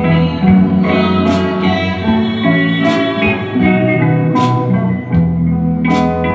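Music led by guitar: sustained chords over a low bass line, with a sharp hit about every second and a half.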